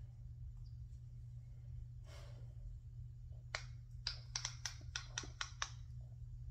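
Plastic fidget toy being worked in the hands, giving a quick run of about nine sharp pops or clicks over some two seconds, starting about three and a half seconds in. A low steady hum sits underneath.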